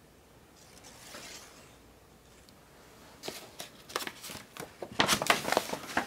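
Paper record sleeves in a bound album of 78 rpm records rustling and crackling as the pages are turned by hand. Quiet at first, then from about halfway a string of sharp paper crackles, loudest near the end.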